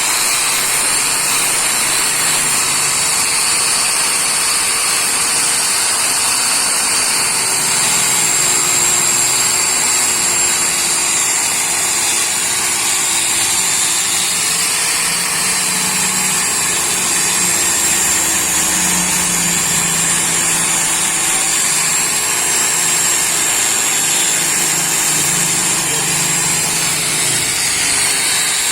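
Angle grinder with a wire brush running continuously, scrubbing old paint off a motorcycle engine crankcase; the motor's pitch wavers a little as the brush is pressed against the metal.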